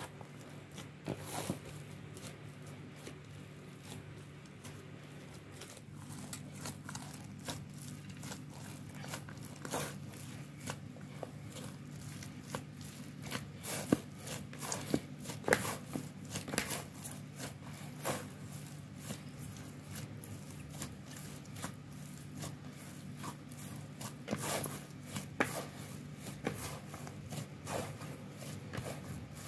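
Hands kneading soft, sticky bread dough in a plastic basin: irregular sticky clicks, slaps and tearing sounds as the fists press into and pull at the dough, coming thicker after the first few seconds, over a steady low hum.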